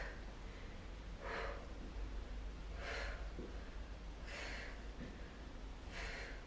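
A woman breathing out hard with exertion, one forceful breath about every second and a half in time with her knee-raise repetitions. Faint soft taps fall between the breaths.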